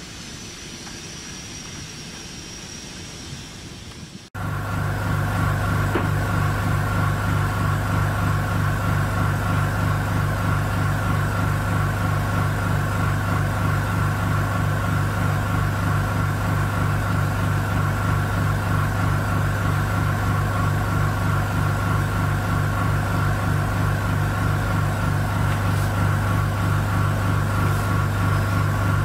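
Faint distant rail-yard sound with a thin high whine, then about four seconds in a sudden change to a loud, steady electric machinery hum with a low note and a regular pulsing. The hum comes from the standing VL10U DC electric locomotive's auxiliary machines.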